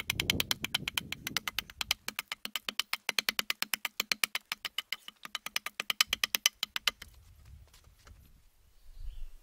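Hatchet chopping into a spruce log in a fast, even run of sharp knocks, about seven a second, stopping about seven seconds in. A low thump follows near the end.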